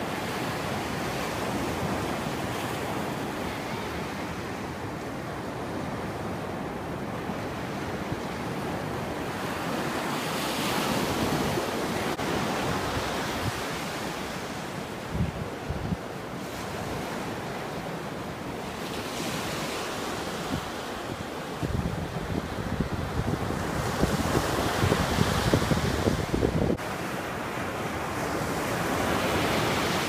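Sea surf breaking and washing up a sandy beach, swelling as each wave comes in every several seconds. Wind buffets the microphone in low gusts, loudest in the second half.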